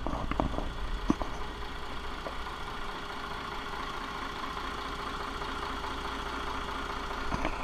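Inboard marine diesel engine idling steadily, heard through an open engine hatch, with a couple of short knocks in the first second or so.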